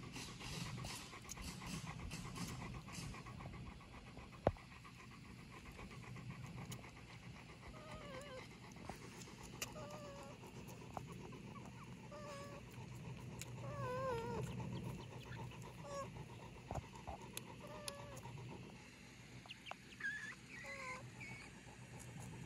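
A Great Pyrenees dog panting steadily with its mouth open, while a fawn suckles on its lips, adding small wet sucking clicks.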